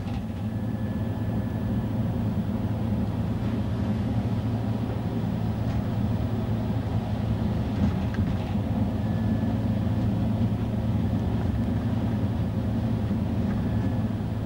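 Steady low rumbling roar of a violent, tornado-strength wind, with a few faint clicks.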